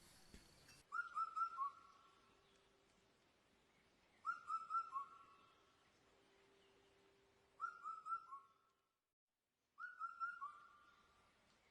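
A bird calling: a short phrase of three or four clear whistled notes, each a little lower than the last, repeated four times a few seconds apart.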